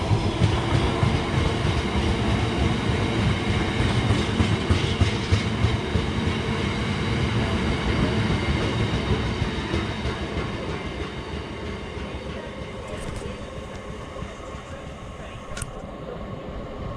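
A train passing, loud at first, then fading away steadily over the second half.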